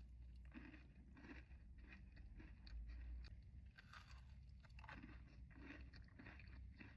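Quiet, close-up chewing of a Crumbl cookie: a steady run of soft crunching chews, about one to two a second.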